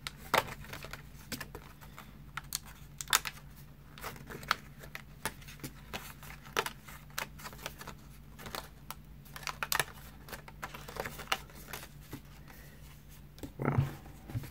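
Irregular light clicks and snaps of printed cardstock pieces being punched out of their sheet and handled, with a little crinkling.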